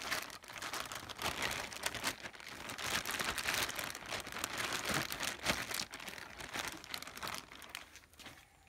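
Polythene bag crinkling and rustling in the hands as it is handled and turned inside out, dying down near the end.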